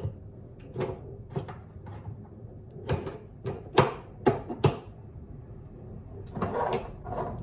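Spice containers and packets being handled and shifted about while searching for a spice: a series of irregular light knocks and clicks, the sharpest a little under four seconds in, with a rustle near the end.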